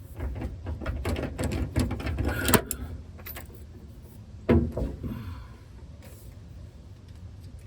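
A run of clicks, rattles and knocks, as of objects being handled, with a sharp knock about two and a half seconds in and another about four and a half seconds in. Quieter for the rest.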